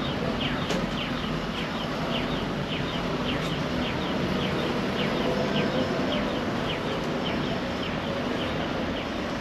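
City street traffic noise, steady, with a regular run of short high chirps about two or three a second.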